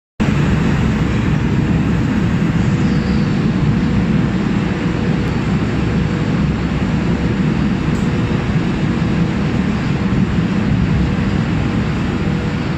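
Steady low rumble of machinery in the vehicle deck of the Taima ferry, a roll-on/roll-off ship, with a faint steady hum above it, as the loading ramp is lowered to the quay.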